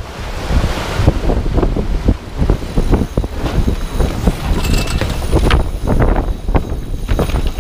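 Heavy wind buffeting the microphone aboard a sailboat under way in a breeze, with irregular knocks and clicks from gear and crew moving in the cockpit.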